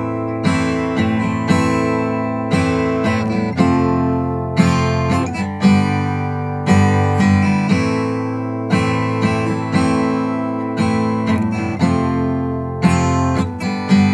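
Steel-string acoustic guitar strummed in a steady rhythm, in a pattern of three downstrokes and one upstroke repeated twice per bar. It rings on an A minor chord and changes chord near the end.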